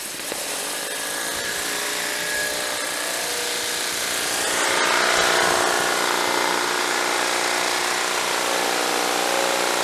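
Mosmatic Hurricane Standard undercarriage cleaner blasting twin high-pressure water jets from its rotating spray bar against a plywood board, fed by a 3,500 PSI, 4 gallon-a-minute pressure washer. A steady, loud hiss of spray with the washer's machine running underneath. Its tones rise in pitch over the first second or so as it comes up to speed.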